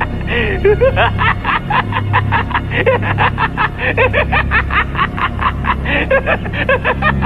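Horror-film soundtrack: a rapid, snicker-like pulsing of about six strokes a second over a low steady drone.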